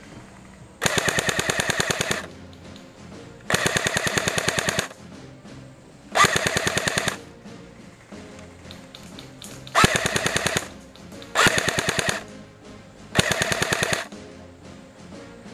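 Drum-fed Thompson airsoft electric gun firing six full-auto bursts, each a second or so long, a second or two apart.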